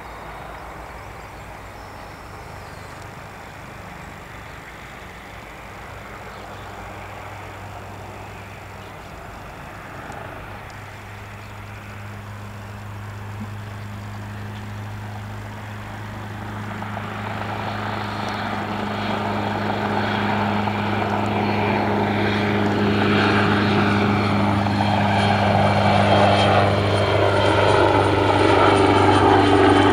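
AgustaWestland AW139 twin-turbine helicopter lifting off and climbing, its rotors and turbines giving a steady low drone. The sound grows steadily louder from about ten seconds in as it rises and comes nearer, with whining tones that shift in pitch toward the end.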